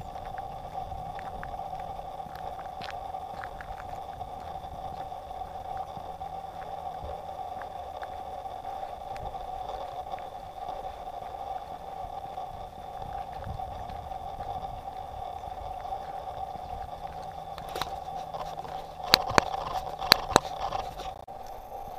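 A vehicle moving along a road: a steady hum over a low rumble, with a few sharp loud clicks about nineteen to twenty-one seconds in.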